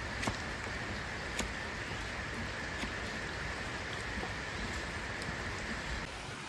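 Steady rain hissing on a shed roof, with a few faint sharp knocks in the first three seconds. The hiss thins slightly near the end.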